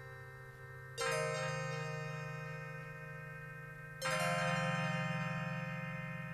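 Deep bell tones struck twice, about three seconds apart, each ringing on with a long, slow fade; the second strike is pitched a little higher than the first.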